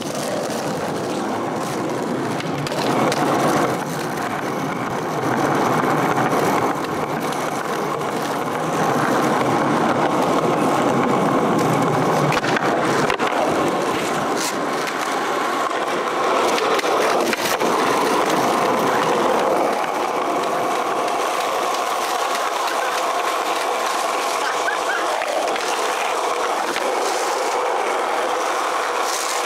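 Skateboard wheels rolling over pavement and asphalt with a steady rumble, growing louder and softer a few times, with a few short clacks.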